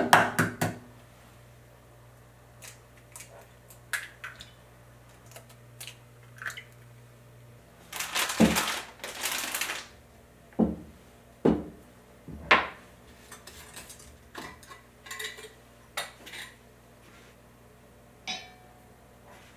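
Kitchen cooking sounds: pots, dishes and utensils knocking and clinking now and then, with a denser burst of noise lasting about two seconds a little before halfway.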